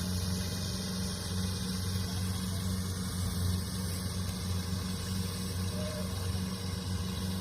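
Diesel engine of a Kubota DC70 Plus combine harvester running steadily with an even low hum.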